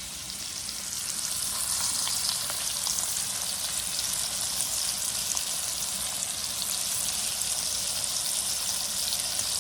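Tri-tip steaks sizzling in butter in a hot pan: a steady frying hiss that grows a little louder over the first second or so.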